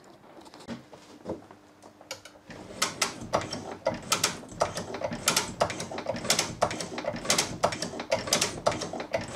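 1920s Drummond Mk2 hand shaper worked by its hand lever, the ram and cutting tool stroking back and forth over a steel block. After a quieter opening, a steady run of metallic clicks and rattles starts a few seconds in, about two a second.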